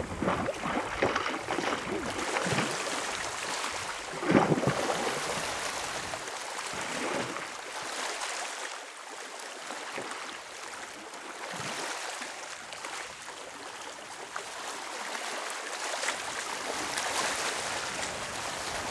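Sea water splashing and lapping as a hooked sea trout is played and landed by hand, with several splashes in the first few seconds, the loudest about four seconds in, then a quieter steady wash of water.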